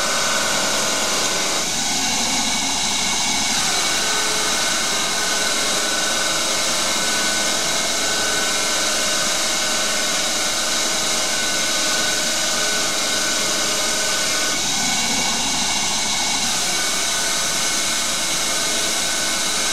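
Small CNC lathe taking heavy roughing cuts in a 2011 aluminium blank, spindle motor running steadily under load, with a steady hiss of spray mist coolant over it. The cutting sound shifts for a couple of seconds about two seconds in and again about fifteen seconds in.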